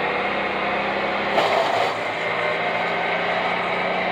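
Wood chipper engine running steadily at a distance, with a brief louder surge about one and a half seconds in.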